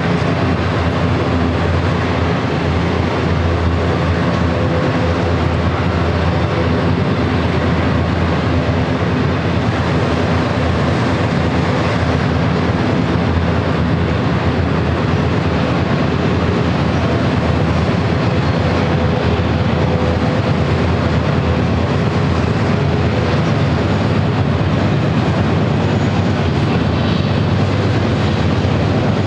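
Freight train of autorack cars rolling past: a loud, steady rumble and clatter of steel wheels on rail.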